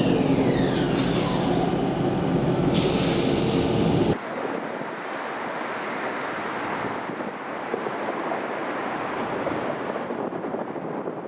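RET electric train running with a motor whine that falls steeply in pitch, over a steady rumble. About four seconds in the sound cuts off abruptly to a quieter, even rushing noise.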